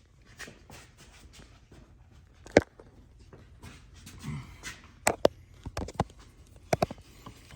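Scattered sharp clicks and knocks of parts being handled and fitted by hand. The loudest is a single sharp knock about two and a half seconds in, with a quick run of clicks in the second half.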